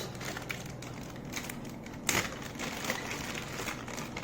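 Plastic pedestal-fan base parts being handled and fitted together: light rustling and small clicks, with one sharper knock about two seconds in.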